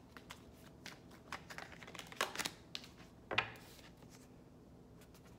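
Tarot cards being shuffled and handled in the hands: soft scattered flicks and rustles of card stock, with a few louder snaps a little after two seconds and again past three seconds in.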